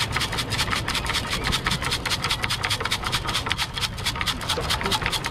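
Metal beach sand scoop with a hexagonal-hole basket being shaken fast to sift sand, shells and grit rattling against the metal in a rapid, even rhythm of several shakes a second.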